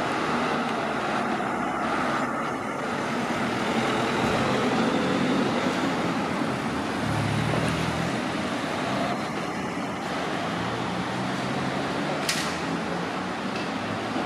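Street traffic noise with cars driving past; a police car's engine passes close about seven to eight seconds in. A brief click sounds about twelve seconds in.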